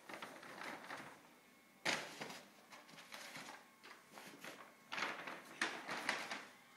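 A shopping bag rustling and scraping over the floor in irregular bursts as a cat moves around inside it. The sharpest burst comes about two seconds in.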